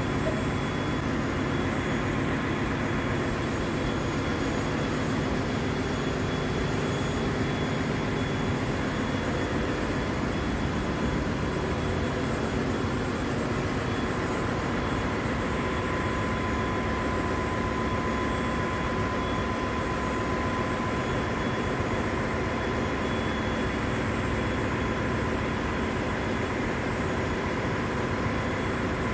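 Steady drone of running machinery in a ship's engine room, with several constant hum and whine tones; one whine grows stronger about halfway through.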